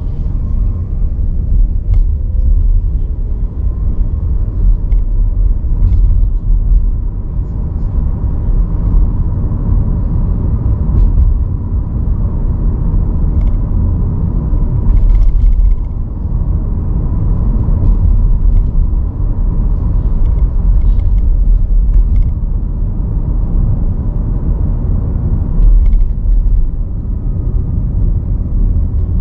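Road noise from a moving car: a steady low rumble of tyres and engine, with a few light clicks scattered through it.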